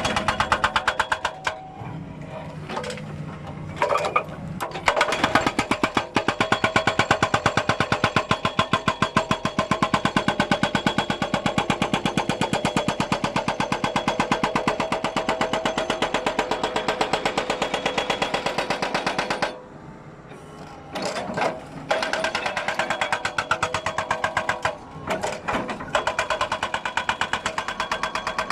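Hydraulic breaker hammer on a Doosan excavator pounding with a rapid, even train of blows. It starts and stops a few times early on, pauses for about two seconds around two-thirds of the way through, and breaks off briefly again near the end before resuming.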